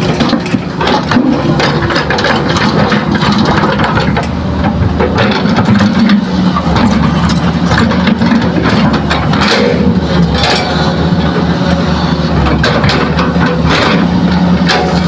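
Hitachi hydraulic excavator's diesel engine running under load, its pitch rising and falling as it digs and swings, with repeated knocks and clatter of soil and stones dropped from the bucket into a dump truck's bed.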